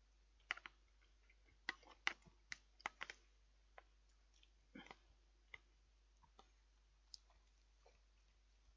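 Faint eating sounds: a run of small sharp clicks and taps, thickest in the first three seconds, then a few scattered ones.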